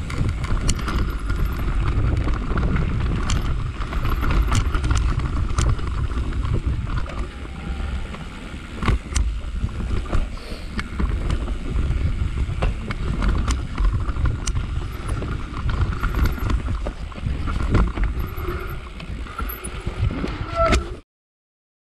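Mountain bike riding down a rough grassy trail: wind buffeting the microphone, tyres rumbling over the ground and the bike rattling, with sharp knocks over bumps. The sound cuts off abruptly about a second before the end.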